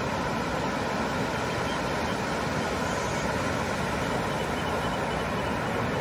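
Ocean surf: waves breaking offshore in a steady, even rush.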